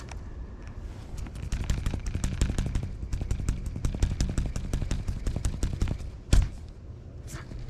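Baitcasting fishing reel cranked quickly, a fast run of clicks lasting several seconds, then a single loud thump about six seconds in.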